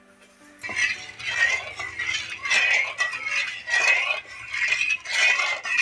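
A flat metal spatula scraping and clinking against the bottom of an aluminium kadai, stirring sugar into water for sugar syrup. The strokes come in an even rhythm of about two a second, starting about half a second in.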